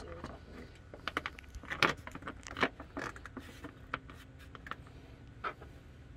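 Irregular clicks and light clatter of parts and tools being handled in a car's engine bay while it is put back together after a spark plug change, with the loudest knocks about two seconds in.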